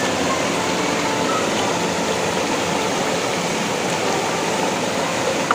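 Steady rush of a shallow river rapid pouring over rocks.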